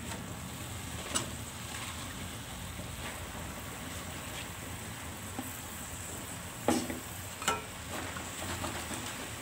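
A wok sizzling with a steady hiss as Chinese cabbage leaves cook in a shallow tomato-chilli sauce, with a few knocks of a metal spatula against the wok, the loudest about seven seconds in.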